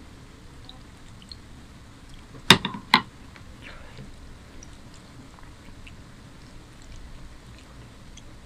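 Curry gravy poured from a glass bowl onto rice, then two sharp knocks a half-second apart as the glass bowl is set down on the plastic tray, followed by faint sounds of fingers mixing rice and curry.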